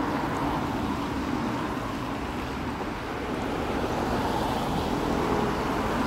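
Continuous road traffic noise: a steady drone of cars running by, with no single vehicle standing out.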